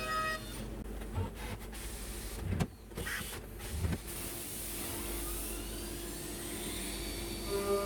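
Hurco BX40i CNC machining centre: a few low clunks, then an electric motor whine that climbs in pitch over several seconds, as when the spindle spins up.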